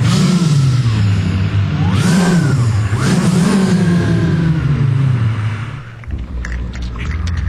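Car engine revving, its pitch rising and falling three times and then winding down. Near the end it drops to a lower rumble with scattered clicks.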